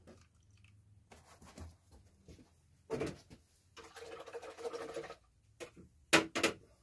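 Handling noises at a work table: scattered light knocks and rustles, a rougher noise lasting about a second a bit past the middle, and two sharp knocks near the end, the loudest sounds here.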